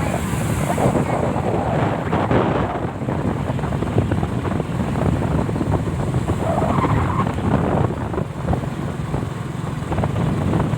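Steady rumble and road noise of a moving vehicle, with wind buffeting the microphone.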